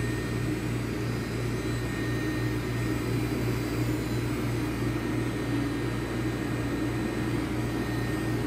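Steady low hum of a Walter Helitronic Mini Power CNC tool and cutter grinder standing powered up, with a faint high whine over it.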